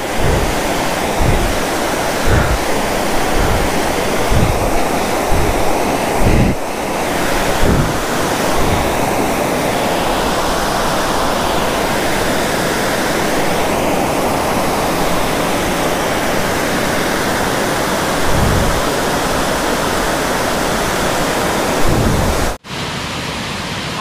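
The steady, loud rush of a big waterfall close to the microphone, with low thumps of wind buffeting the microphone during the first several seconds and again near the end. A brief cut near the end, after which the rush continues a little quieter.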